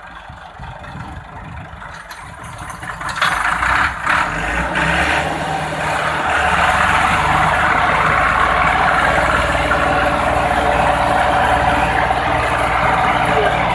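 Massey Ferguson 375 diesel tractor engine and a second tractor's engine throttling up about three seconds in, then running loud and steady under heavy pulling load, the two tractors chained together with a loaded sugarcane trolley behind.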